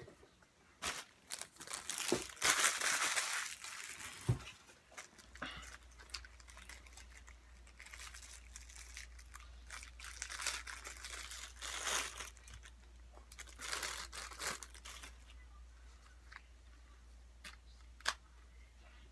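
Headphone packaging being unpacked by hand: paper and packing material crinkling and rustling in bursts, with a few sharp clicks near the end.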